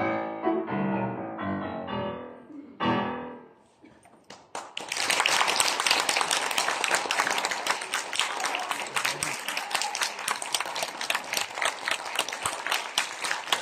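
A cello and wind ensemble plays the closing bars of a piece, ending on a final chord about three seconds in that rings away into a moment of quiet. Audience applause breaks out about five seconds in and keeps going steadily.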